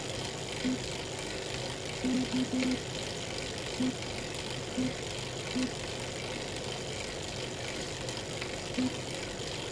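Elite Real Turbo Muin B+ trainer running steadily under pedalling, with short low cracking noises at irregular intervals, about ten in all and a quick run of four around two seconds in. The cracking is a fault that appears at any cadence once power goes over 200 watts.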